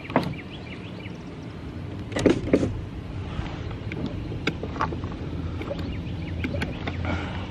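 Car running at idle, heard from inside the cabin: a steady low hum, with scattered clicks and a couple of knocks about two seconds in.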